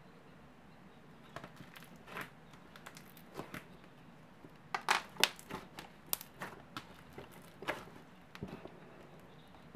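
Thick clear icee slime with fine glitter being pressed and stretched by hand, giving irregular crackling pops and clicks, starting about a second in and loudest around the middle.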